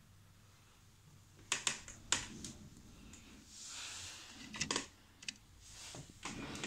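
Handling noise from a handheld phone being swung around: a few scattered sharp clicks and taps, in pairs about a second and a half in and again near five seconds, with a soft rustle between them.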